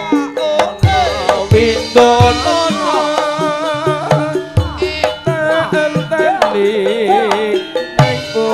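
Javanese gamelan music for ledek dancing: kendang hand-drum strokes about once a second over ringing metallophones, with a wavering, bending melody line on top.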